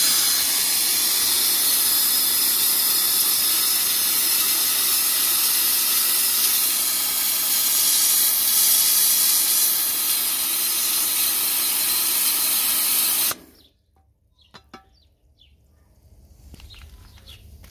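Kärcher pressure washer's high-pressure water jet firing through a wet-sandblasting nozzle against an alloy wheel rim: a loud, steady hiss that cuts off abruptly about thirteen seconds in. The nozzle is spraying water without drawing up the sand.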